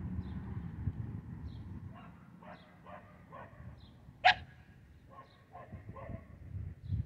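A dog barking in a quick series, about three barks a second, with one much louder, sharp bark about four seconds in.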